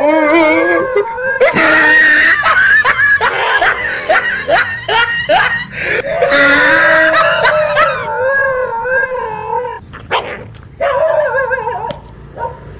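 A dog barking and yelping in quick cries, mixed with long wavering howl-like whines; the calling grows quieter near the end.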